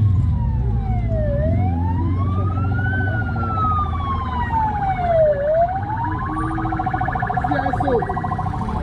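Convoy escort siren wailing in slow rises and falls, switching to a fast warbling yelp about six seconds in, over the low steady running of passing vehicles.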